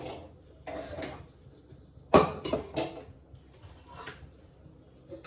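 Kitchen utensils and dishes clattering as they are handled: a few separate knocks and clinks, the loudest about two seconds in.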